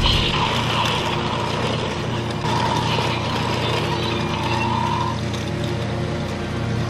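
Battery-powered Trackmaster toy train motor running, a steady mechanical hum with a whine that comes and goes as the engine pulls its coaches along the plastic track.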